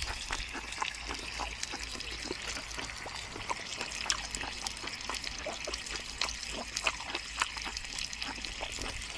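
Food sizzling on an electric grill: a steady hiss with irregular small pops and spits of fat.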